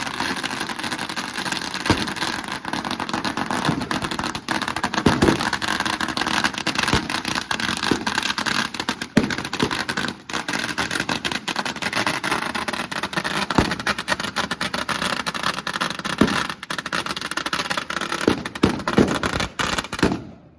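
Thousands of firecrackers going off in a continuous dense crackle, rapid sharp pops over a steady roar with a few louder cracks; it cuts off suddenly near the end.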